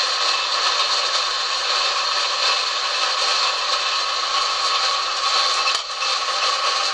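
Harrison lathe running, its tool taking a slow finishing cut along a metal shaft: a steady machining noise with a brief dip about six seconds in.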